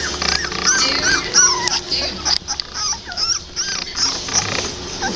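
A litter of three-week-old American Pit Bull Terrier puppies squealing and whimpering: many short, high, wavering squeaks overlapping one another, over a steady low hum.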